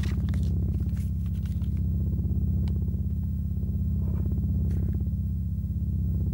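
Low, steady synthesizer drone with a fast pulse. Over it come light paper rustles and clicks in the first second and a half, and again around four to five seconds in, from banknotes and a cigarette pack being handled.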